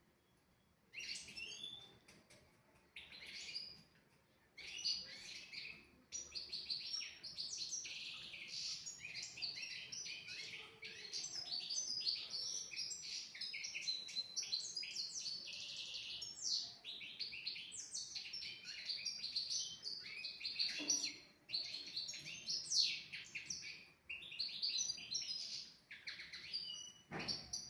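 European goldfinch singing, a fast, almost unbroken run of twittering, trilling phrases that starts about a second in, with a short thump near the end.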